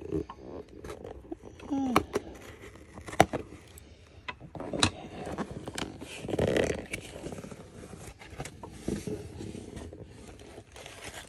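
Scissors snipping and scraping through packing tape on a cardboard mailer box, with several sharp clicks, then the cardboard lid being lifted open.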